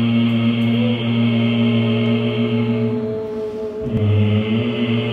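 Voices chanting the qigong 'nnng' healing sound, a long nasal hum held on one steady low pitch. It fades out about three seconds in and resumes on a fresh breath about a second later.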